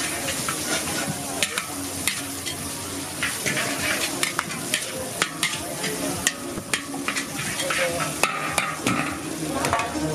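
Noodles sizzling in a large wok over high heat while a metal ladle and spatula toss them, clinking and scraping against the wok in irregular sharp strikes.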